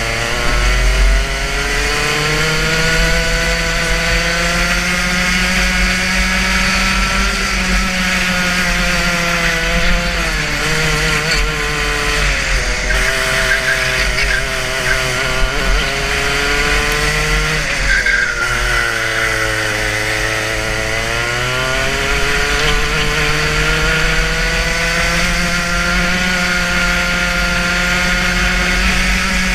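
Racing kart engine heard from on board at full racing speed. Its pitch climbs along the straights and falls back under braking for corners, dropping most clearly about ten and eighteen seconds in.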